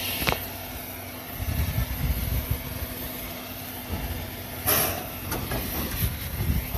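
JNR Class C11 steam tank locomotive standing on a turning turntable, with a low, uneven rumbling and a short burst of steam hiss about two-thirds of the way through.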